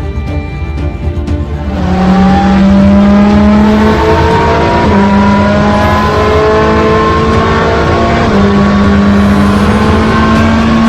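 Race car engine accelerating hard, its pitch climbing through the gears and dropping back at gear changes about 4 and 8 seconds in.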